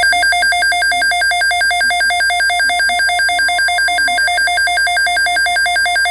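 Emergency Alert System attention signal: a loud electronic two-tone alert that warbles rapidly back and forth between a lower and a higher pitch, marking the start of a new emergency alert.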